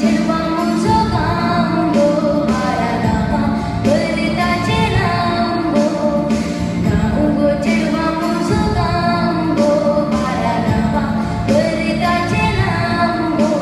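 Song with a woman singing over instrumental backing with a steady beat.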